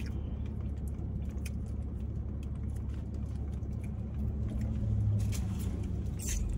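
Steady low rumble of a car engine idling, heard from inside the cabin, with a few faint clicks from eating over it.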